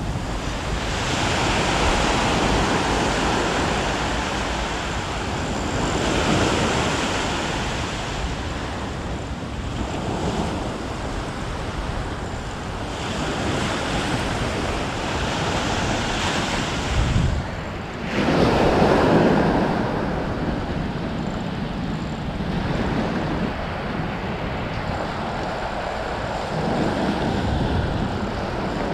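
Ocean surf washing onto a rocky shore, swelling and fading every few seconds, with one bigger wave about two-thirds of the way through. Wind rumbles on the microphone.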